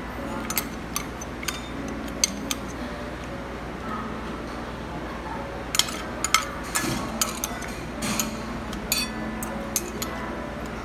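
Metal chopsticks and a spoon clinking and scraping on a ceramic plate: scattered sharp clicks, busiest about six to seven seconds in, over steady background noise.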